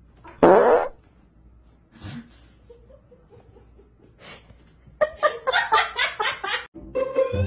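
A person laughing in a quick run of short bursts from about five seconds in, after a single short loud burst of sound about half a second in. A rising cartoon 'boing' sound effect begins at the very end.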